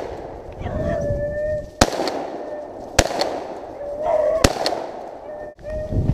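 Beagles baying in a sustained, wavering howl while running a rabbit, broken three times by sharp cracks.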